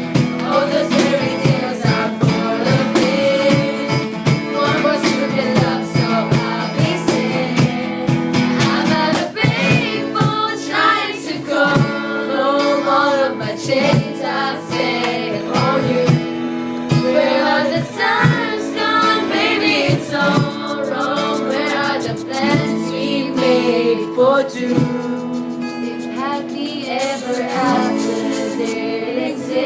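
Music: singing over sustained backing chords.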